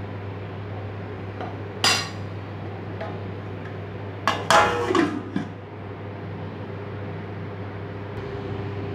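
Metal kitchenware clinking against an aluminium cooking pot: one sharp clink about two seconds in, then a louder clatter of two or three knocks a little after four seconds.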